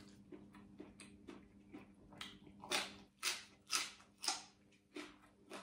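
Crisp crunching and chewing of raw vegetable, close to the microphone: a run of short, sharp crunches that is loudest from about two and a half to four and a half seconds in, over a faint steady hum.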